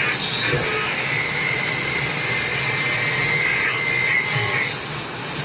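Demodulated double-sideband AM signal playing from a software-defined radio receiver: a steady loud hiss of static, with a thin high tone held for a few seconds in the middle.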